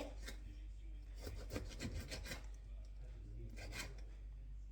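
Knife sawing through a lemon on a cutting board, a series of short rasping strokes at an uneven pace.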